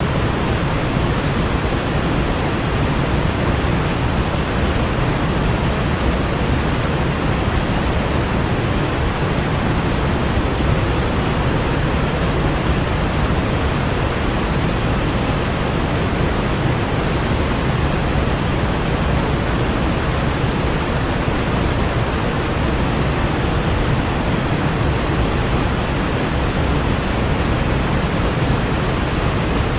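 Waterfall, its falling water making a loud, steady rushing noise without a break.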